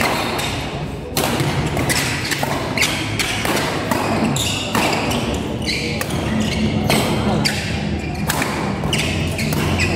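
Doubles badminton rally: rackets striking the shuttlecock again and again, about one sharp hit every half second to a second, with players' shoes squeaking and thudding on the court. The hits echo in a large hall.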